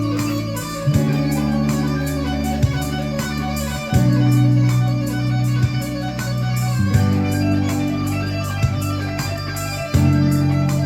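Instrumental music: sustained chords on guitar or organ-like tones that change every second or two over a steady beat.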